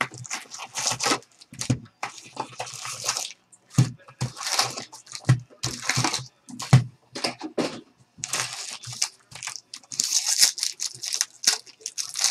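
Trading card packaging being torn open and crinkled by hand: a run of sharp rips and crackles with a few handling knocks.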